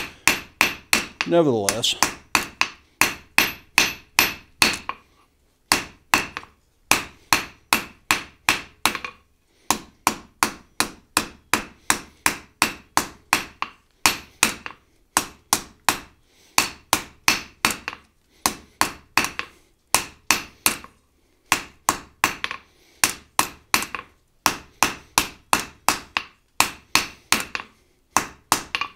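Hand hammer striking a red-hot iron bar on an anvil, about three blows a second in runs with short pauses between them, as the edges of a forged skillet handle are rounded over.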